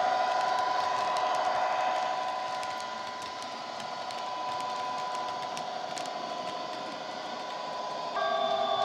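Digital sound of a Class 66 diesel's EMD two-stroke V12 engine, played by an ESU LokSound decoder through a small tablet speaker in a Bachmann OO-gauge model locomotive. It runs steadily with a held hum, gets quieter as the train draws away, and turns suddenly louder near the end. Faint clicks from model wagon wheels on the track run under it.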